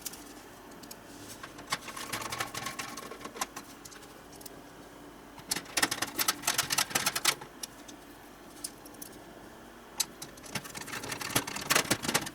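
Clicking and rattling of small hard parts being handled as a motherboard is fitted into a computer case, in three bunches of quick clicks with short quiet spells between them.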